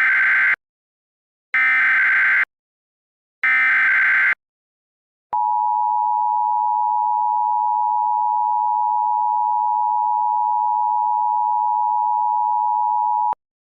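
Mock Emergency Alert System alert start: three bursts of SAME digital header data, each about a second long, followed by the EAS two-tone attention signal (853 and 960 Hz sounded together). The attention tone holds steady for about eight seconds and then cuts off sharply. This sequence signals that an emergency alert broadcast, here a tornado emergency, is about to begin.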